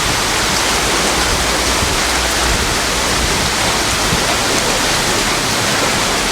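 Heavy rain pouring down in a cloudburst: a loud, steady rushing hiss with no break.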